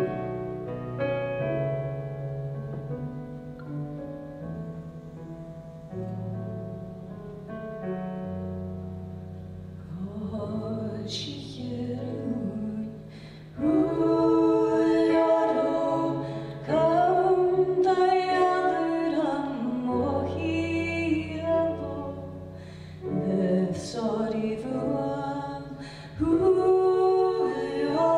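Live music: keyboard notes over low, held bass tones, with a singing voice coming in about ten seconds in and growing louder about fourteen seconds in.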